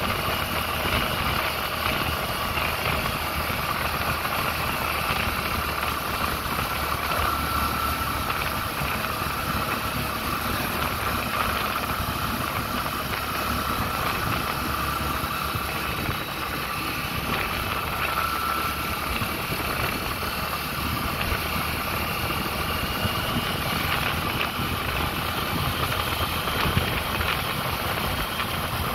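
Vehicle engine running steadily under an even rush of noise, with no clear change in speed.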